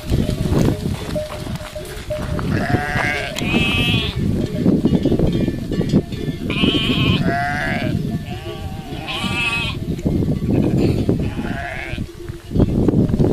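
Sheep in a large flock bleating several times, each bleat a wavering, quavering call about a second long, over a continuous noisy rumble of the flock on the move.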